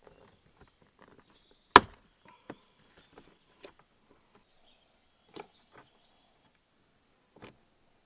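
Plastic licence plate lamp of a Hyundai i30 being pried out of its tailgate recess with a flat-blade screwdriver. A sharp snap about two seconds in marks its retaining clip letting go. Scattered softer plastic clicks follow as the lamp and its connector are handled.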